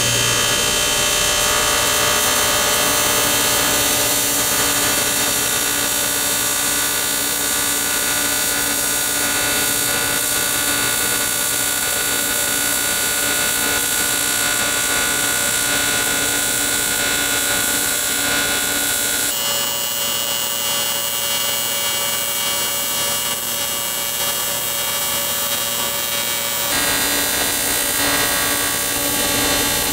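AC TIG welding arc on aluminum: a steady electric buzz with many fixed tones, running at roughly 100 to 150 amps. Its tone shifts for several seconds past the middle, then returns.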